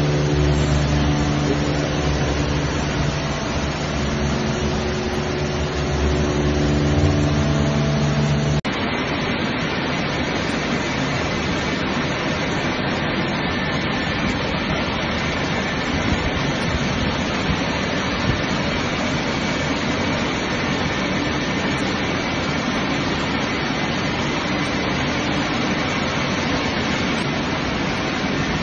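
Automatic tunnel car wash running: machinery humming steadily under a loud hiss of water spray. About eight and a half seconds in, the sound changes abruptly to an even rushing of spray and rotating wash brushes, with the hum much fainter.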